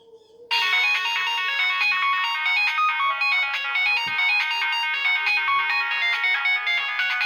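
Nokia 1616 mobile phone playing a ringtone: a fast, busy electronic tune with several notes sounding at once. It starts about half a second in, after a short gap.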